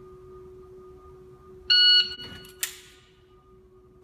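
Shot timer's start beep: one short, loud, high electronic tone about two seconds in. A sharp click follows less than a second later, over a faint steady hum.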